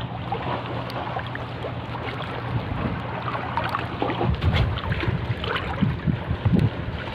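Wind buffeting the microphone over choppy seawater, with water lapping and a steady low hum underneath.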